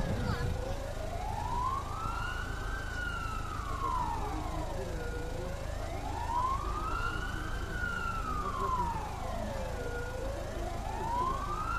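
A siren wailing slowly, its pitch rising and falling about every five seconds, over a low background rumble.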